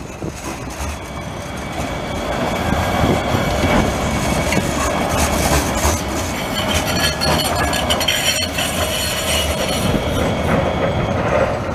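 NJ Transit articulated light rail trams rolling past on street track, a steady rumble of wheels on rails that grows louder. In the second half a high, steady squeal of the wheels on the curved track joins it.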